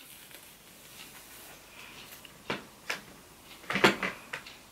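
Light plastic clicks and knocks of a hair straightener and comb being handled: two single clicks about two and a half and three seconds in, then a louder cluster of clicks near four seconds.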